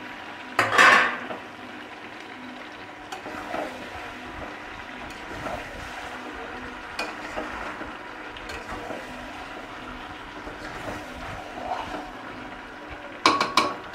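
Pieces of mutton and potato being stirred with a metal spatula in a steel kadai, sizzling in the oil the meat has released, with scrapes of the spatula against the pan. A louder scrape about a second in, and a few sharp clacks of metal on metal near the end.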